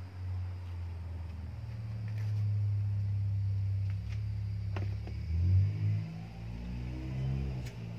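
A vehicle engine running with a steady low hum. Its tone swells and shifts about two-thirds of the way through, and there are a few light clicks.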